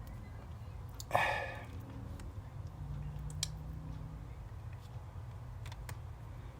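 Light clicks and taps of small screws and plastic laptop case parts being handled and fitted, with one louder clatter about a second in.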